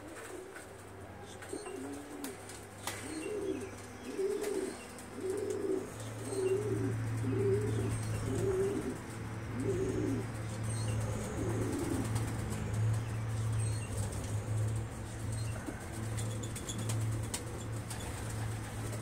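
Domestic pigeon cooing: a run of about ten coos, roughly one a second, that stops about twelve seconds in. A steady low hum runs underneath and gets louder about six seconds in.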